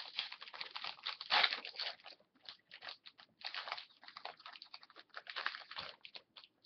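Foil wrapper of a hockey card pack crinkling and rustling in the hands as the pack is torn open and the cards handled, in a quick, irregular run of crackles.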